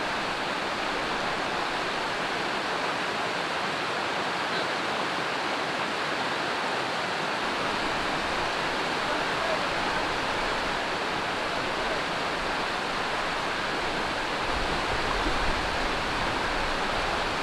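Steady rush of flowing water, an even hiss with no breaks. A low rumble like wind on the microphone joins it near the end.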